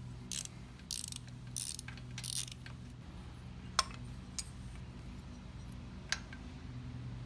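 Ratchet wrench clicking in four short bursts over the first two and a half seconds as it undoes a hex nut on a Harley-Davidson Shovelhead's intake manifold bracket. A few single metal clicks follow as the bolt and clamp are worked free.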